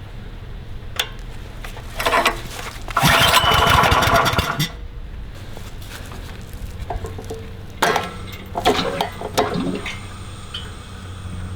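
Small gasoline engine of a 25-ton log splitter running steadily, with a loud rushing burst about three seconds in and a few shorter clattering bursts later.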